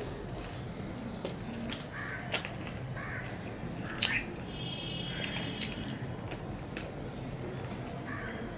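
Eating by hand from a steel plate: fingers mixing rice and fish curry, then chewing with wet mouth sounds and a few sharp smacks, the loudest about four seconds in as a mouthful is taken.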